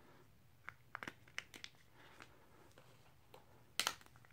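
Faint clicks and rustles of a Samsung Galaxy S7 being handled in a Spigen Rugged Armor TPU case, then a short, louder crackle near the end as the phone is pried out of the flexible case.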